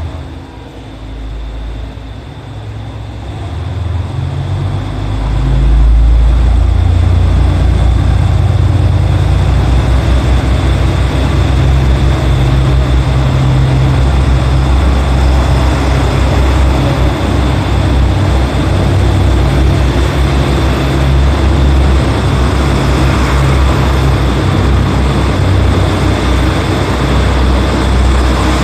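KTR8000-series diesel railcar pulling away from a station platform: the diesel engines rev up over the first few seconds into a loud, steady low drone. The cars then run past with rising rolling noise.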